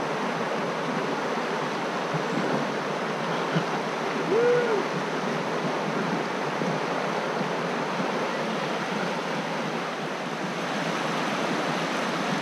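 River rapids rushing steadily over shallow rocks. About four and a half seconds in, a single short hoot-like call rises and falls in pitch.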